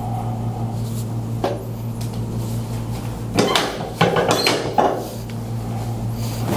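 Chiropractic adjustment on a treatment table: a cluster of knocks and rustling clatter about three and a half to five seconds in, then one sharp knock near the end, over a steady low hum.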